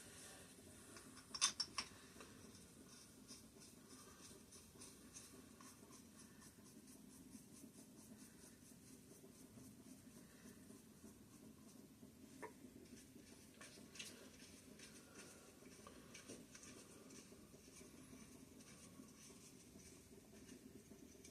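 Mostly near silence with light handling clicks: a short cluster of sharp clicks about a second and a half in, then two single clicks later on, as a connecting-rod cap is fitted back onto its rod.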